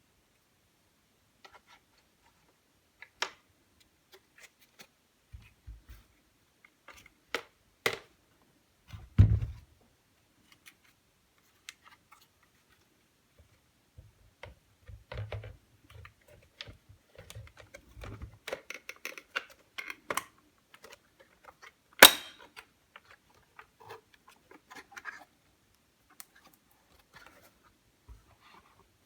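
Scattered clicks, taps and knocks of small hard parts being handled, with a dull thump about a third of the way through and one sharp click about three quarters of the way through.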